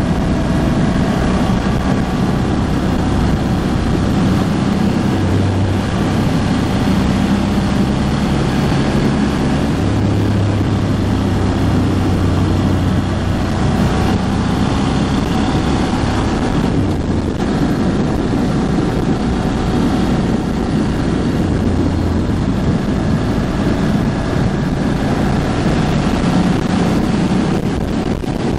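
Ducati Hypermotard 1100S's air-cooled L-twin engine running steadily under way during its break-in period, with wind rushing over the microphone. The engine note eases briefly a little past halfway, then picks up again.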